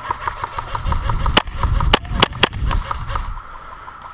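Airsoft gunfire: a rapid, even string of ticks with several louder sharp cracks about a second and a half in, over a low rumble.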